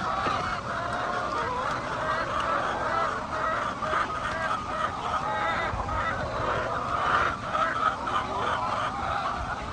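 A large flock of hens calling and clucking, many overlapping calls forming a steady chorus.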